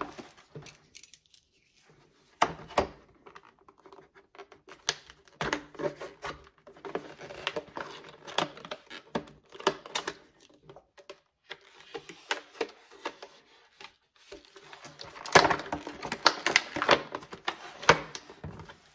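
Packaging of a drill and driver bit set being handled and opened by hand: irregular clicks, rattles and crinkling, busiest near the end.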